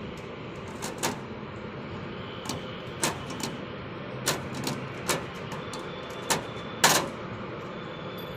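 Long-handled lever hand riveter working as rivets are set to fix a number plate to a pickup's front bumper: a series of about ten sharp clicks and snaps at uneven intervals as the handles are squeezed and the rivets set, the loudest about seven seconds in.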